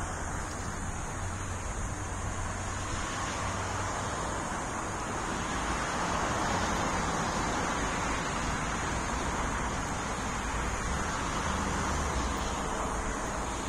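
Road traffic noise: a steady hiss of passing vehicles that swells a little around the middle.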